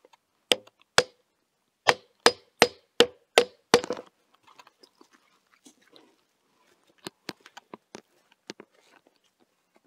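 Hammer blows at the foot of a wooden post: two strikes, a short pause, then six evenly spaced strikes, each with a brief ringing note. A few lighter knocks and taps follow near the end.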